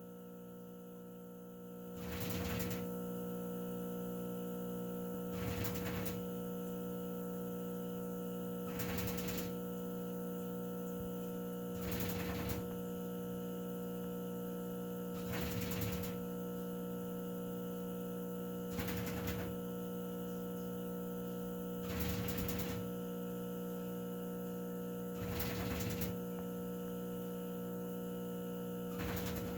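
Cockatiel giving short, rapid rattling bursts like a machine gun, each under a second long, repeating about every three seconds, over a steady electrical hum.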